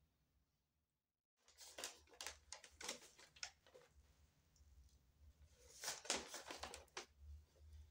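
Brown paper takeaway bag rustling and crinkling as it is handled, in irregular bursts: a run of crinkles starting about a second and a half in, and another cluster near the end.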